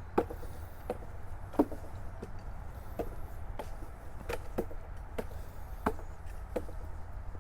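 Footsteps thudding on a wooden boardwalk, an even walking pace of about three steps every two seconds.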